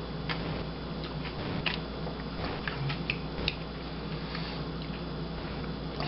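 Mouth sounds of someone chewing soft-serve ice cream mixed with crunchy candy cane bits: scattered soft clicks and smacks over a steady low background hum.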